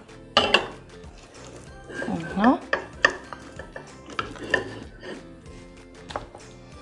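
A spoon clinking and scraping against a copper pot as it stirs and scoops, with several sharp clinks, the strongest about half a second in and about three seconds in.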